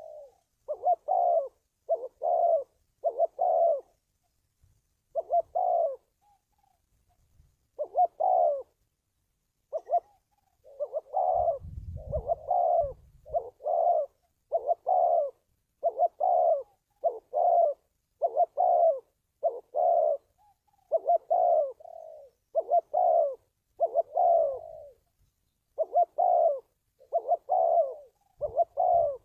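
Spotted dove cooing, a long run of short low coos repeated in close groups with brief pauses. A short low rumble comes about twelve seconds in.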